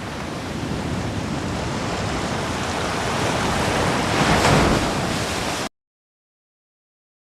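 A rushing noise swells steadily and peaks about four and a half seconds in. It then cuts off abruptly to total silence for the last second and a half.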